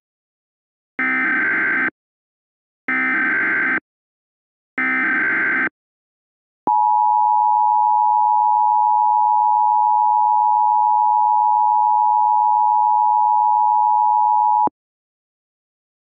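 Emergency Alert System tones. First come three one-second screeching bursts of SAME digital header data, evenly spaced. Then the EAS two-tone attention signal, a steady dual tone, holds for about eight seconds and cuts off suddenly.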